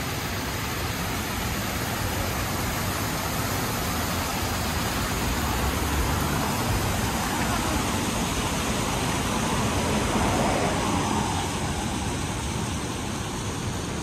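Steady road-traffic noise from cars passing on a wide city avenue, mixed at first with the splashing of a small artificial rock waterfall. It swells a little around ten seconds in.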